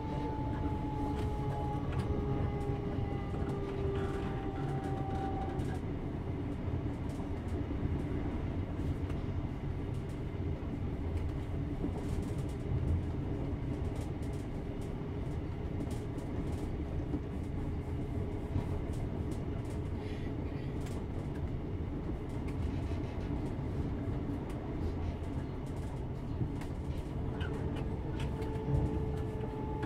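Inside a Class 321 'Renatus' electric multiple unit on the move, heard from the rear of a passenger coach: a steady rumble of wheels on track with scattered clicks. A whine from the electric traction equipment falls slightly in pitch over the first few seconds and fades, then returns near the end.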